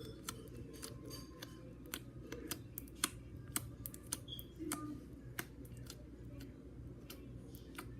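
Slime being squeezed and pulled in the hands, giving faint, irregular little clicks and pops.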